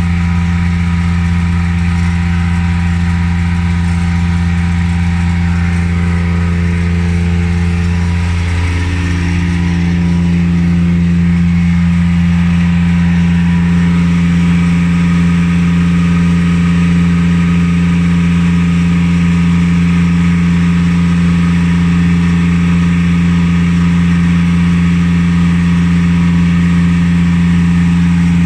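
A machine running at constant speed, giving a steady low hum. About nine seconds in, its tone shifts slightly and it gets a little louder.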